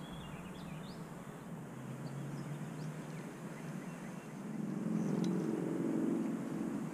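A motor engine humming steadily, growing louder about four and a half seconds in, with a few faint high chirps.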